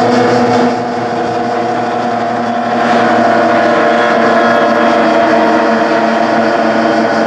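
Outboard engines of several OSY 400 racing powerboats running flat out as the pack passes, a steady, continuous engine drone that grows louder about three seconds in.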